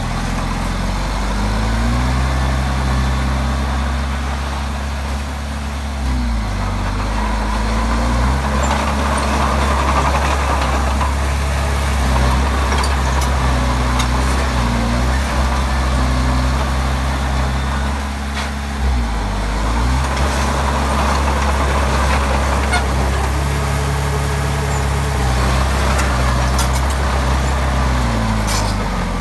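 Komatsu D20P bulldozer's diesel engine working continuously, its pitch dipping and recovering every few seconds as the load on it changes.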